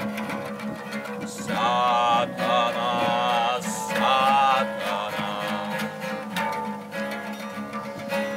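Two acoustic guitars being fingerpicked together, with a voice singing a long, wavering phrase over them from about a second and a half in until nearly five seconds in.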